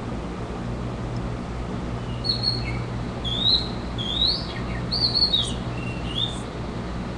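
Recorded birdsong played through laptop speakers: a run of short, sliding chirps starting about two seconds in, over a steady low hum.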